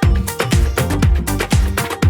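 Background dance music with a steady four-on-the-floor kick drum, about two beats a second, and a bass line.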